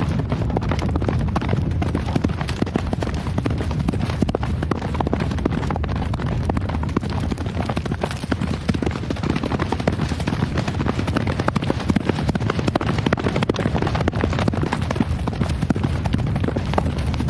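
Horse hooves galloping: a dense, unbroken run of hoof strikes on the ground at a steady level.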